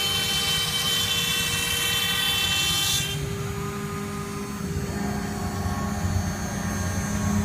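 CNC router spindle whining steadily at high speed while cutting. The hissy cutting noise stops abruptly about three seconds in, and the spindle keeps running with a lower steady whine and hum.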